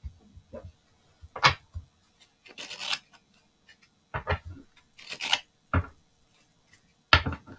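A deck of tarot cards being shuffled by hand: two papery swishes of cards sliding against each other, with a few short sharp taps between them.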